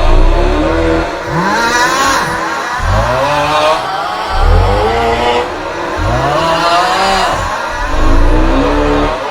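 The 'Aughhhh' snoring meme sound: a loud, wavering, groaning 'aughhh' snore with a heavy low rumble, looped so that it repeats about every two seconds.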